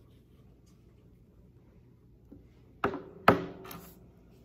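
Quiet room tone, then two sharp knocks on a tabletop less than half a second apart about three seconds in, as a smartphone is set down on the table.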